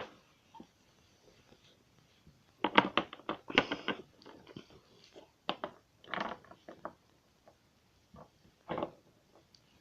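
Small hard plastic toy figures clicking and knocking against each other and a surface as they are handled and set down, in scattered clusters of taps.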